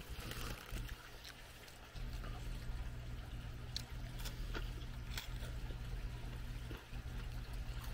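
Faint crunching of a man chewing Cheetos Crunchy Buffalo, scattered short crunches, over a low steady hum that gets louder about two seconds in.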